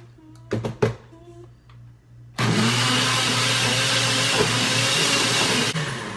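Countertop blender: a couple of knocks as the jar is seated on the base, then the motor starts with a rising pitch and runs loudly for about three seconds, pureeing a watery chipotle-pepper sauce, before winding down near the end.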